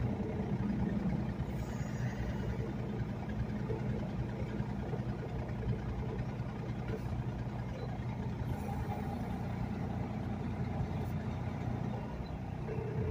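Tractor-trailer's diesel engine idling steadily, heard from inside the cab while the truck sits in stopped traffic.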